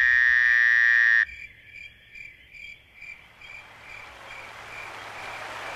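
A frog's loud, buzzing call that cuts off abruptly about a second in. It is followed by a quieter chirp repeating about twice a second, which fades as a hiss builds.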